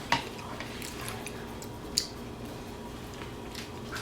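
Utensils clicking against dishes during a meal: two sharp clicks, one right at the start and one about two seconds in, with a few fainter ticks between them.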